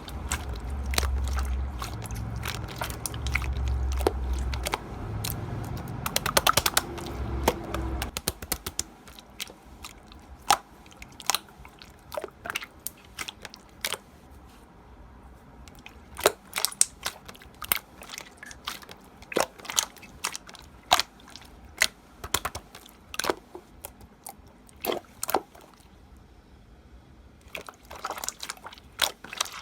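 Slime being squeezed and pressed by hand, giving sharp crackling clicks and pops, with a duller pressing noise underneath for about the first eight seconds, then sparser pops.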